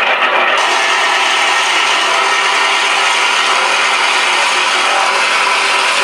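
Synthesized radial aircraft engine sound, a blend of A-1 Skyraider and T-28 Trojan startup recordings, played by a Shockwave sound module through two 3-inch speakers in a model A-1H Skyraider. The engine runs steadily, thin and without bass.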